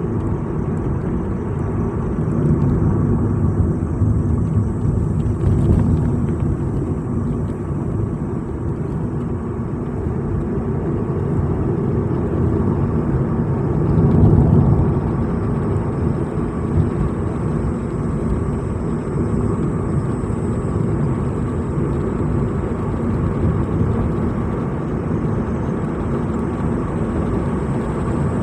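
A vehicle driving, with a steady low engine and road rumble that swells briefly a few times.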